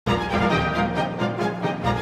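Brass band music, with trumpets and other brass instruments playing together.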